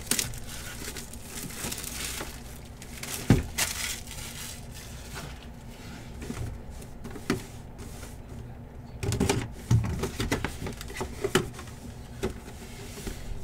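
Cardboard box being handled and opened by hand: scattered knocks, taps and rustles of the box and its flaps. The sharpest knock comes about three seconds in, and a cluster of handling noises comes around nine to ten seconds.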